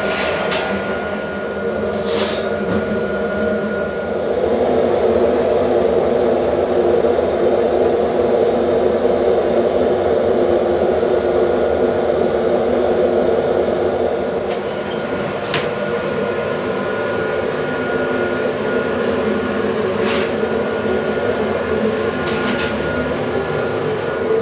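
Steady mechanical roar of a bakery's bread oven and machinery running, with a faint thin whine. A few sharp metallic clicks and knocks stand out about two seconds in and again several times in the second half.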